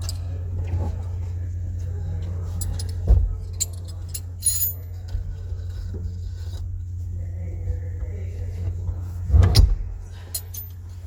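Metallic clinks and rattles with two heavier knocks, about three seconds in and near the end, as a car seat is fitted to its steel mounting brackets, over a steady low hum.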